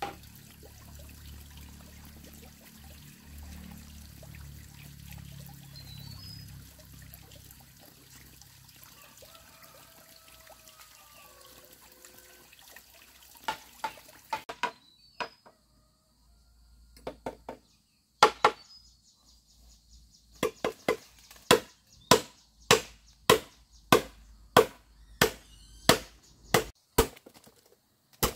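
Steady outdoor background rumble and hiss, then, from about 13 seconds in, a machete chopping into a bamboo stalk: a few scattered strikes, then regular sharp chops nearly two a second.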